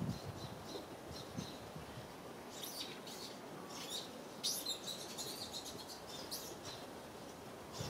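Small birds chirping in short, repeated calls, busiest from about two and a half seconds in, over a steady outdoor hum.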